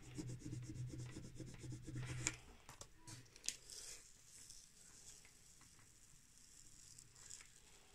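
Faint rubbing of a plastic card over vinyl lettering on a rough varnished wooden board, pressing the letters down through the transfer tape, then softer scratchy sounds as the clear transfer tape is peeled back.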